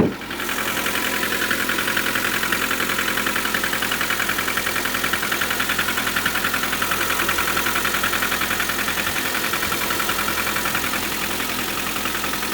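Lada Granta FL's petrol engine idling just after a cold start at minus 14, with a fast, even clatter that the owner calls rattling (тарахтит): the strange cold-start knock. It comes in louder just after the start and eases slightly near the end.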